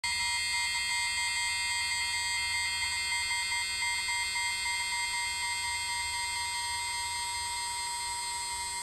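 A steady high-pitched electrical whine of several fixed tones over a low hum, unchanging throughout.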